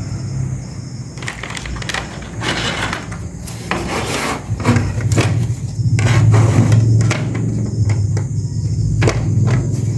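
Toy train track pieces being handled and fitted together: scattered clicks and scraping, over a steady low hum.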